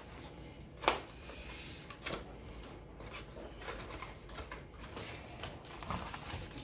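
Keyboard's cardboard box and packaging being opened and handled: scattered clicks and rustles, with one sharp click about a second in.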